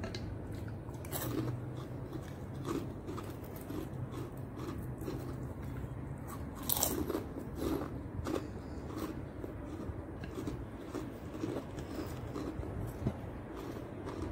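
A person biting and chewing food close to the microphone, with repeated crunches and one louder bite about seven seconds in, over a steady low hum.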